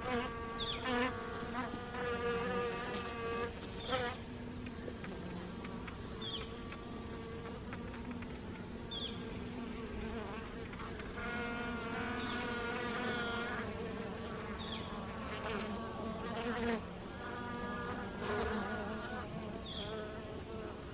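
Honeybees buzzing as they fly in and out at the hive entrance, the hum swelling and shifting in pitch as single bees pass close. They are workers out on a mild winter day, cleaning the hive by carrying out dead bees. A short high chirp sounds every few seconds.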